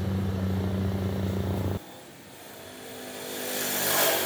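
Kubota DC70 combine harvester's engine droning steadily; it cuts off abruptly about two seconds in. A quieter engine sound then swells toward the end and eases off.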